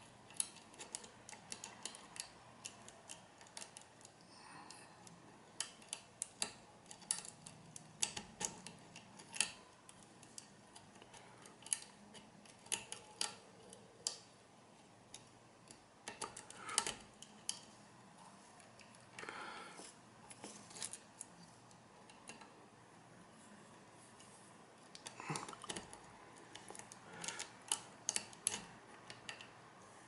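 A lock pick and tension tool bent from a metal hairclip working inside a small cam lock as it is being picked: faint, irregular metallic clicks and ticks with a few short scrapes.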